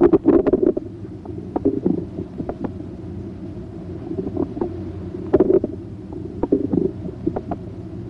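Bowel sounds heard through a stethoscope's diaphragm on the right lower abdomen: irregular gurgles and clicks, some in quick clusters, over a steady low hum.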